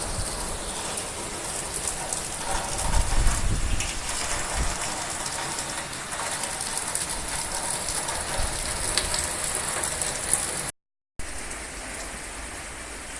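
Heavy typhoon rain falling steadily, with low rumbling surges a few seconds in. The sound cuts out briefly about eleven seconds in and comes back a little quieter.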